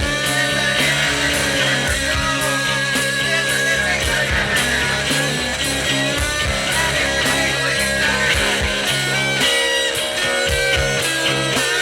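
Rock song with guitar over a steady drum beat.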